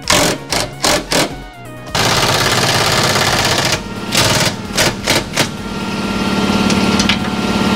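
Impact wrench running bolts into the engine subframe: several short rattling bursts, then longer continuous hammering runs, the last one growing louder near the end.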